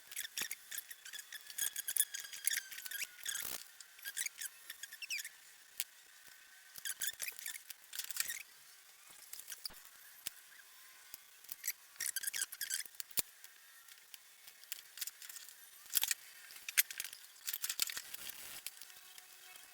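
Irregular small metal clicks, clinks and scrapes of motorcycle carburettor parts being handled and pulled apart by hand, coming in short flurries with pauses between them.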